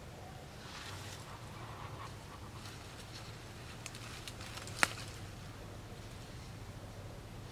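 Sage leaves rustling as hands pick sprigs from the plant, with a few light clicks and one sharp snap of a stem a little before five seconds in.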